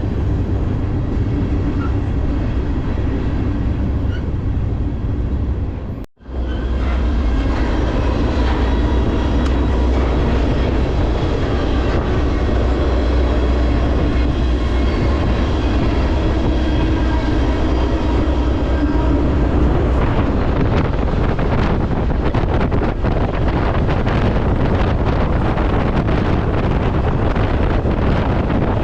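Freight train running, heard from aboard a car: a steady loud rumble of the train under way. The sound cuts out for a moment about six seconds in.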